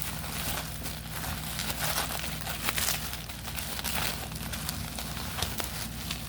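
Crinkling and rustling of card packaging being handled, an uneven run of short scrapes.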